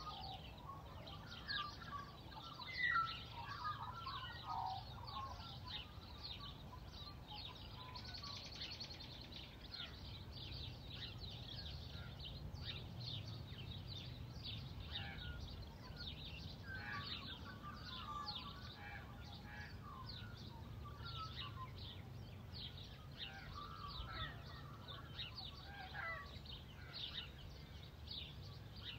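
Bird chorus: many small birds chirping rapidly and high-pitched throughout, with lower warbling calls near the start and again through the second half, over a faint, steady low background noise.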